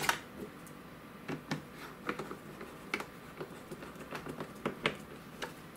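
A small hand screwdriver driving a screw into an Antec MX-1 external hard drive enclosure: scattered faint clicks and ticks of the driver tip and case being handled.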